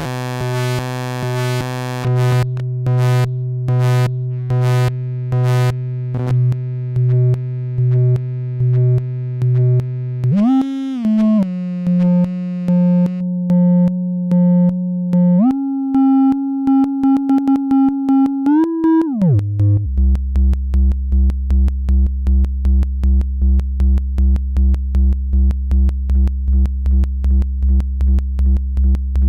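Flight of Harmony Infernal Noise Machine desktop analog synthesizer playing a pulsing bass lead: one buzzy tone throbbing in even pulses, stepping up in pitch with quick glides as the knobs are turned about halfway through. Then it drops to a deep bass note whose pulses come faster.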